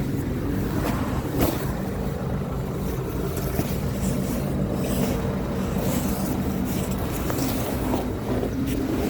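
A motor vehicle's engine running steadily, with wind on the microphone and a few light knocks.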